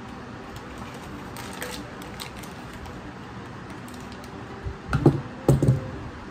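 A few light clicks and taps of a metal spoon scooping custard powder from its cardboard box, over a steady background noise. Near the end come two short, louder low-pitched sounds about half a second apart.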